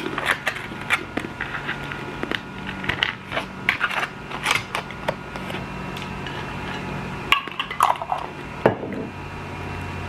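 A pita cracker being bitten and chewed close to the microphone: a run of irregular crisp crunches, over the steady hum of an electric fan.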